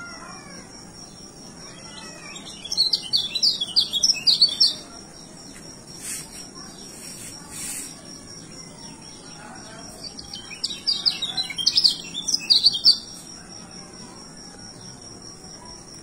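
A caged white-eye (kecial) singing in two bursts of rapid, high twittering, one a few seconds in and one about two-thirds through, over a steady high-pitched drone.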